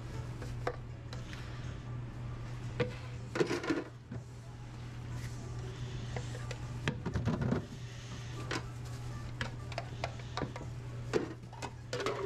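Steady low hum of kitchen equipment, with scattered light knocks and clatters as a food pan and its plastic lid are handled on a prep counter; the loudest clatters come a few seconds in and again past the middle.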